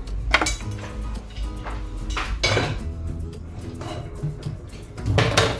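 Kitchen dishes and metal utensils clinking and knocking, with sharp strikes about half a second in, about two and a half seconds in, and twice near the end.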